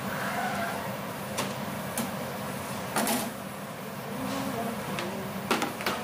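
Tools and a hard case being handled on a stainless-steel counter: a few sharp clicks and knocks, the loudest about three seconds in and a quick cluster near the end, over a steady background machinery hum.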